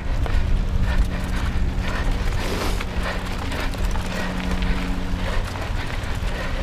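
Mountain bike ridden fast over a rough dirt trail: tyres crunching on loose dirt and the bike rattling with frequent small knocks over bumps, with wind rumbling on the camera's microphone.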